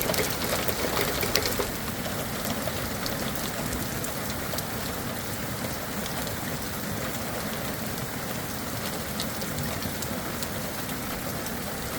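Heavy rain from a thunderstorm pouring steadily, with scattered sharp ticks of drops striking, a little louder in the first second or two.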